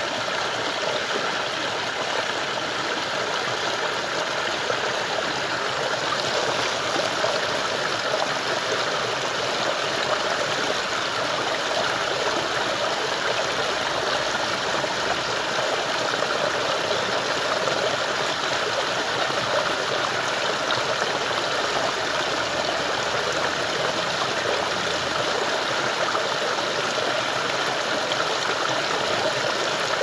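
Water of a small rocky stream pouring down over stones in a little cascade, a steady rushing.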